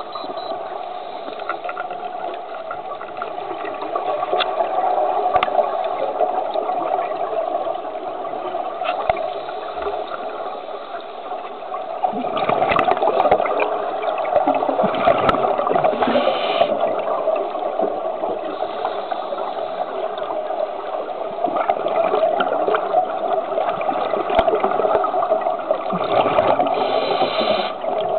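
Underwater sound of a scuba diver's regulator breathing: exhaust bubbles rumbling over steady water noise, swelling louder twice, once in the middle and once near the end. A few sharp clicks are scattered through it.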